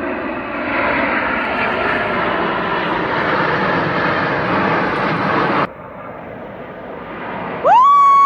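Snowbirds CT-114 Tutor jets passing overhead: a steady rushing jet noise that cuts off abruptly after about five and a half seconds. Near the end a loud, clear call rises, holds and falls.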